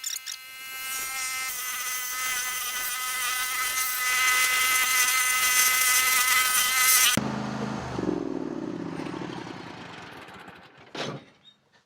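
Small engine of a yard machine running at high speed with a high-pitched whine. About seven seconds in it cuts off sharply, and a lower tone falls away as the engine winds down. A short knock follows near the end.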